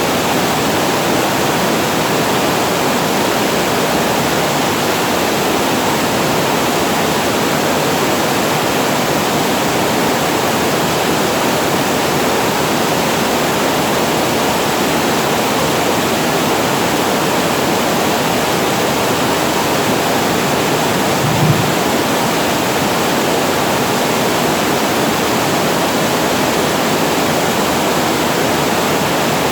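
Water pouring steadily over the weir of a storage reservoir, a constant even rush of falling water. One brief low knock sounds about two-thirds through.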